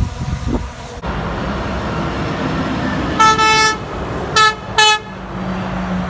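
Semi truck's horn honking three times, one blast of about half a second and then two short toots in quick succession, over the steady noise of the truck's engine and tyres. A low engine drone grows as the truck draws near at the end.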